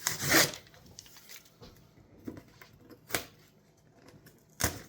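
Toy packaging being torn and pried open by hand: a loud tearing rasp right at the start, then a few sharp clicks and knocks, one about three seconds in and one near the end.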